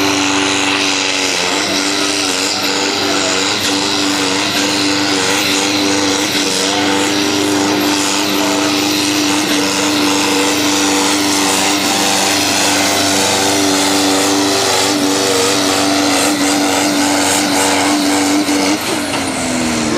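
Pulling tractor's diesel engine running flat out under load as it drags a weight-transfer sled, a loud steady high engine note. Near the end the revs drop away.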